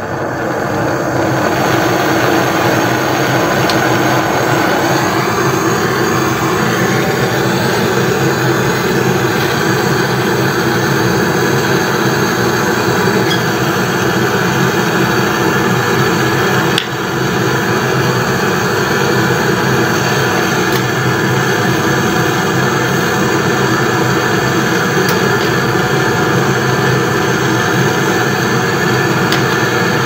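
Superlas canister gas torch burning with a steady, loud hiss, swelling up over the first two seconds as the flame is opened up, with one brief dip partway through. The flame is heating a brazed pipe joint on a refrigerator compressor to melt the silver braze and free the pipe.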